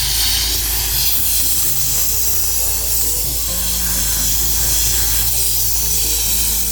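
Borehole drilling rig spraying water and air out of the hole: a loud, steady hiss of spray over a low machine hum, starting abruptly just before and running unbroken.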